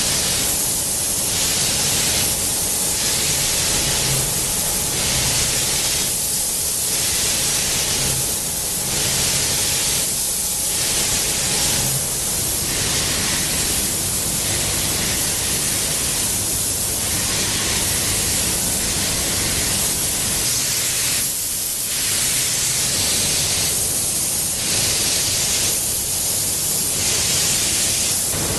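Loud, steady hiss of robotic paint sprayers and booth air, swelling and dipping about every two seconds.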